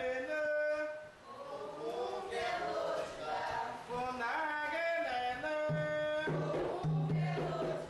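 A ritual chant for the iabás, sung unaccompanied, with held, bending notes. About two-thirds of the way in, a low steady tone and a rough hissing sound join the singing.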